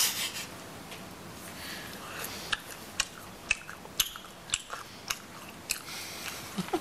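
A person eating dry breakfast cereal, crunching it in short, sharp bites about twice a second over a faint steady hiss.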